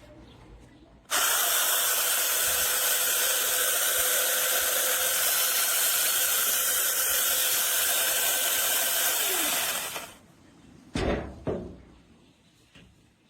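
Battery-powered electric mini chainsaw switched on, running at a steady high speed for about eight seconds, then winding down with a falling whine after the trigger is released. Two knocks follow shortly after.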